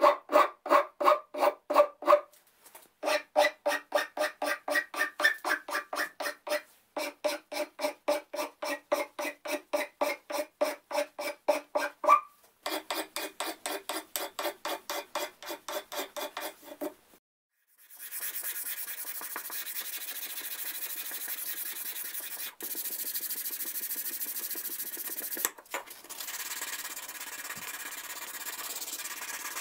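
A metal file stroked quickly back and forth across the faces of a pear-wood chisel handle, about four or five strokes a second with a ringing tone, in runs broken by short pauses. After a short gap near the middle, sandpaper rubs steadily over the wood with a quieter, higher hiss.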